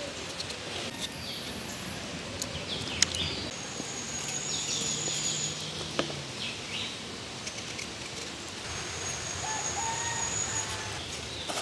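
Birds calling against a steady outdoor background, including two high thin trills each lasting about two seconds. A few sharp clicks cut through, the loudest about three seconds in.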